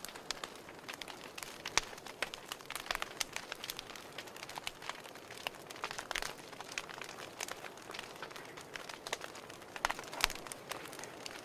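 Wood fire crackling: irregular sharp pops and snaps, several a second, over a soft hiss, with one louder pop about ten seconds in.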